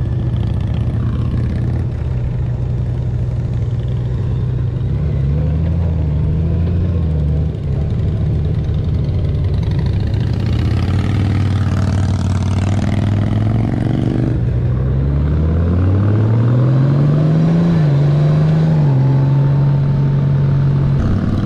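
Honda Goldwing's flat-six engine heard from the rider's seat, steady at first. It then twice climbs in pitch under acceleration, each climb ending in a quick drop as the automatic dual-clutch gearbox shifts up. Wind rush swells in the middle.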